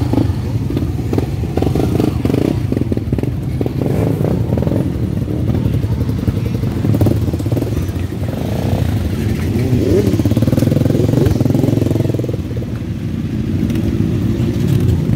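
Several motorcycle engines running and idling close together, with one engine revving briefly about two-thirds of the way through.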